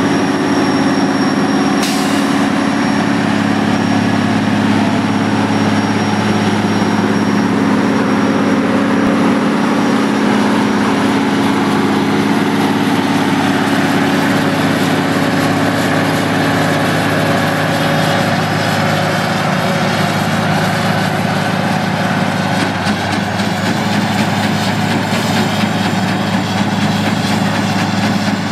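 Truck-mounted rumble strip milling machine working the road shoulder: a heavy diesel engine runs steadily under the continuous grinding of the cutter drum as it mills rumble strips into the asphalt.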